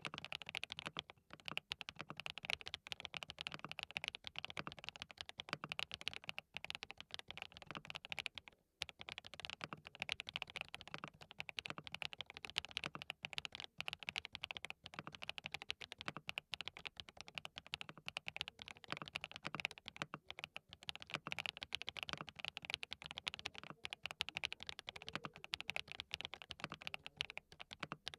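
Fast, continuous typing on a DT35 87 custom keyboard fitted with hand-lubricated SWK Dragon Ghost linear switches: a dense run of keystrokes with one short break partway through.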